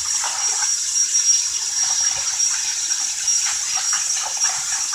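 A steady high hiss with scattered light clicks and rustles of hands handling things.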